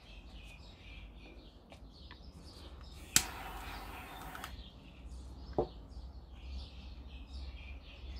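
Small birds chirping in the background. About three seconds in, a sharp click is followed by a hiss lasting just over a second, and a second, smaller click comes about two seconds later.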